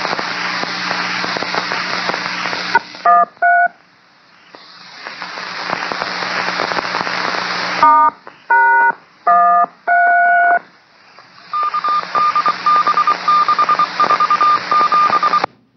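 Railroad radio channel heard through a scanner: open-channel static hiss broken by touch-tone (DTMF) codes, two tones about 3 s in and four more around 8 to 10 s, then a quick run of about a dozen short beeps at one pitch over the hiss before the channel cuts off suddenly.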